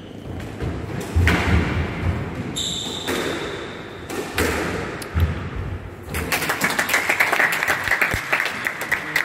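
Squash rally: the ball thuds off rackets and court walls several times, with a short sneaker squeak on the wooden floor. About six seconds in the rally stops and a spell of hand clapping starts.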